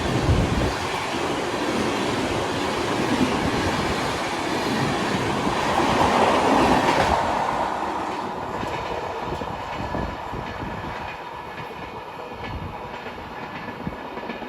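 Purvanchal Express passenger train running past at high speed, a loud rush of wheels on rails with a clickety-clack over the rail joints. From about eight seconds in the rush grows quieter and duller, leaving spaced clacks of the wheels.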